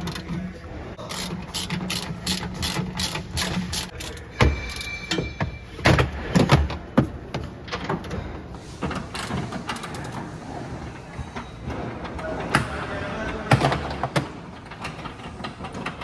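Hand tools and trim fittings clicking and knocking inside a car's rear cabin as the panels and seat belt mountings are taken off. A quick, even run of clicks comes in the first few seconds, then scattered knocks and clicks.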